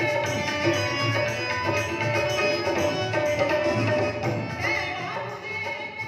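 A woman singing a Sufi song into a microphone, accompanied by an electronic keyboard holding chords and a steady drum beat.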